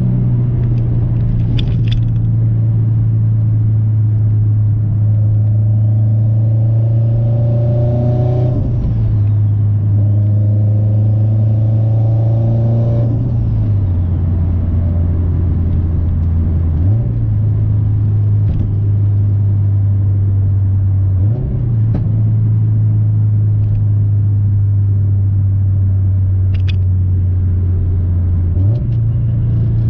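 Turbocharged Subaru STI running under way with a steady low exhaust drone. Twice in the first half the engine pitch climbs for about three seconds together with a rising turbo whistle, then drops off sharply as the revs fall at a gear change.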